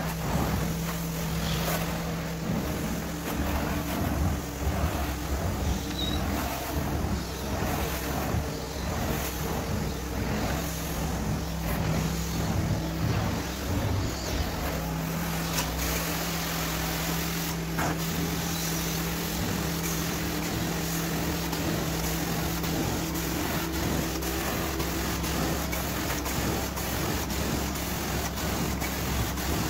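Hot-water carpet extraction machine running: its wand hisses steadily over a low hum as hot water is sprayed into the carpet and sucked back up.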